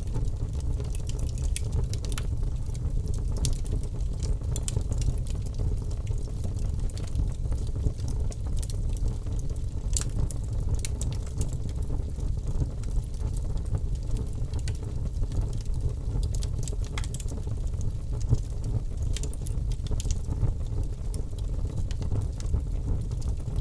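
Wood fire burning in a fireplace, with a steady low rumble of flames and frequent small irregular crackles and pops.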